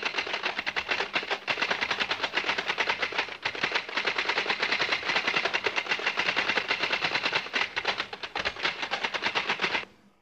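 Manual typewriter being typed on very fast: a dense, unbroken run of rapid key strikes that stops abruptly near the end.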